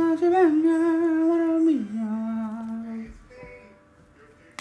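A man singing a long held note that drops to a lower held note partway through, stopping about three seconds in.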